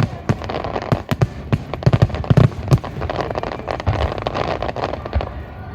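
Aerial fireworks going off: a dense, irregular series of sharp bangs and crackles, with a few deeper booms among them.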